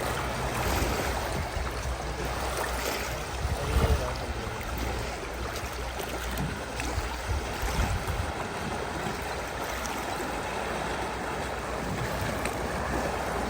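River water flowing steadily, with a low wind rumble on the microphone.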